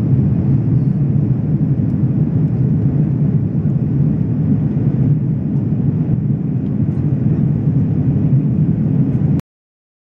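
Steady low rumble of airliner cabin noise aboard an Airbus A340-600 in flight, with a few faint ticks; it cuts off abruptly about nine seconds in.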